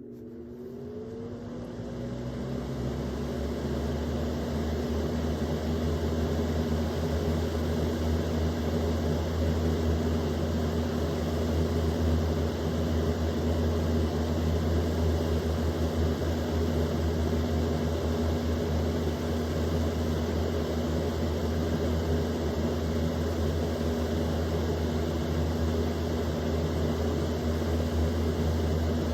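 Easy Home box fan's electric motor spinning up on high speed, with a rising whine and growing loudness over the first few seconds, then running steadily: a constant low motor hum under an even rush of air from the blades.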